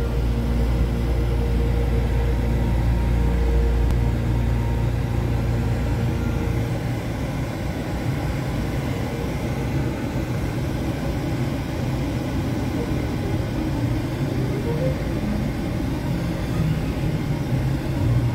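Car engine and drivetrain running at low speed, heard from inside the cabin, with a steady low hum. After about six seconds it gives way to a rougher rumble as the tyres roll slowly over rutted dirt.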